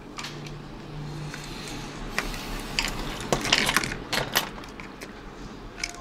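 Light clicks and clinks of small metal precision screwdrivers and a phone being handled on a rubber repair mat, coming in a quick cluster in the middle.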